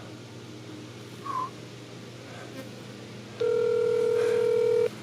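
Mobile phone ringing out on an outgoing call: one steady ringback tone about a second and a half long, starting past the middle, heard through the phone's speaker.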